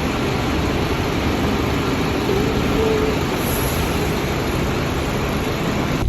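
A train running, giving a steady, loud rumble with a few faint whining tones.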